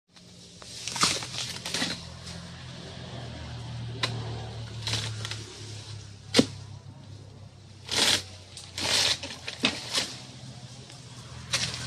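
Chisel-tipped harvesting pole knocking and scraping against the stalks and frond bases of oil palm fruit bunches as they are pried loose: a string of sharp knocks, the sharpest about six seconds in, with longer scraping strokes around eight and nine seconds, over a steady low hum.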